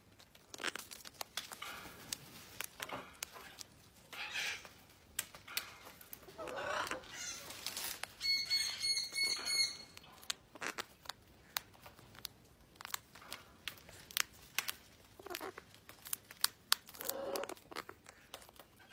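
Male gang-gang cockatoo cracking and chewing gumnuts with its beak: a long run of sharp, irregular clicks and crunches, broken by a few brief soft sounds from the bird.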